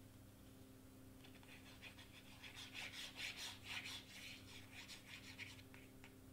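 Faint rubbing and scraping of a hand on cardstock: a run of short strokes starting about a second in and stopping shortly before the end, over a steady low hum.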